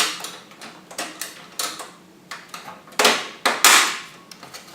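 Sharp clicks and clacks from a thin metal motherboard I/O shield being handled against PC case parts. There are a few light knocks early on, then a louder pair about three seconds in.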